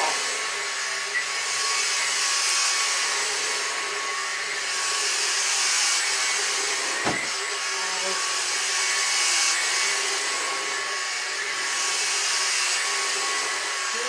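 Numatic Henry Quick cordless stick vacuum running on full power with its brush-roll floor head on carpet: a steady motor whine over rushing air, swelling and easing slightly every few seconds as the head is pushed back and forth. A single sharp click about seven seconds in.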